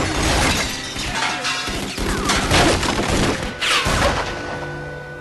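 Loud crashes and breaking glass, several in a row, from a violent fight inside a house. Music runs underneath, and the noise dies away near the end.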